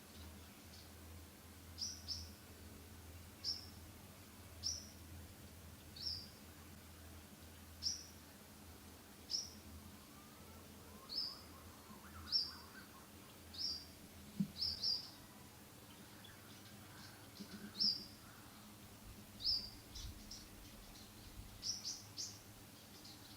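A bird repeating a short, high, sharp call note roughly every second and a half, some notes doubled, over a faint steady hum.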